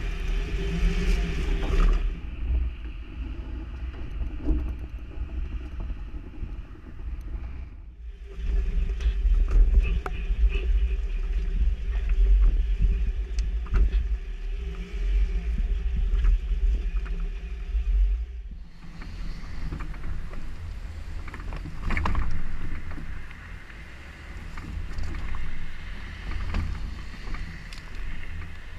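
Jeep Wrangler running slowly over rocks off-road, a steady low engine rumble picked up by a camera mounted low on the vehicle, with occasional knocks. The sound changes abruptly several times where the footage is cut.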